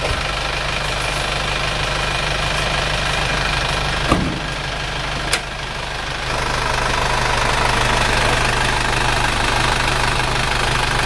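Isuzu Panther's four-cylinder diesel engine idling steadily at full working temperature with a newly fitted thermostat. Two short knocks about four and five seconds in. From about six seconds in, with the bonnet up, the engine comes through louder.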